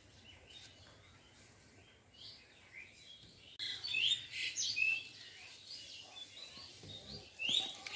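Small birds chirping in many short, quick calls, starting abruptly about three and a half seconds in; before that only faint background noise.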